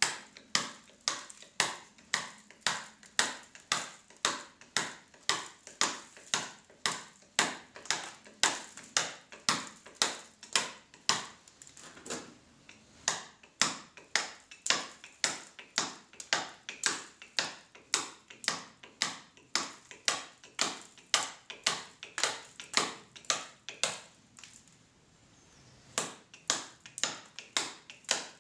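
Hand chisel being struck with a mallet into limestone: steady, sharp blows about two a second, each with a brief ring, as stone is cut away. Around halfway through, the blows turn lighter for a moment. Later there is a pause of about two seconds before the strikes resume.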